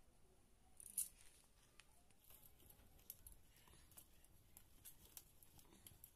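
Garlic cloves being peeled by hand: faint dry crackles and ticks from the papery skins, with one sharper click about a second in.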